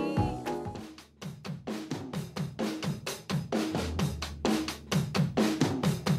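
Background music: a song fades out at the start, and a little over a second in a new track begins with a steady drum-kit beat of kick, snare and hi-hat.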